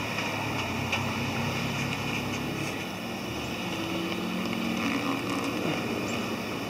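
Street traffic on wet roads: vehicle engines running over a steady hiss of tyres and spray.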